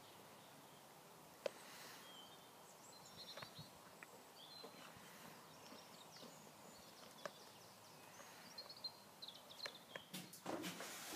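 Faint outdoor background with small birds chirping on and off and a couple of sharp clicks. A louder rustling noise comes in near the end.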